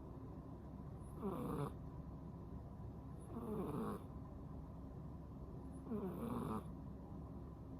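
A 10-month-old cat snoring in her sleep: three snores about two and a half seconds apart, each falling in pitch.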